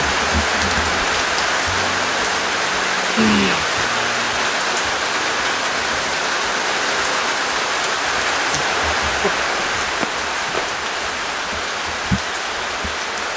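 Steady rain, an even hiss that holds at one level without a break.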